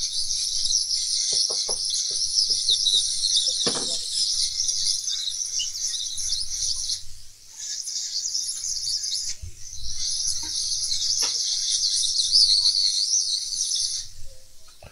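Hot-air rework station blowing at half airflow and 500 degrees to melt hot glue on a laptop hinge mount: a steady high hiss that breaks off briefly about seven and nine seconds in and again near the end. A few faint clicks sound over it.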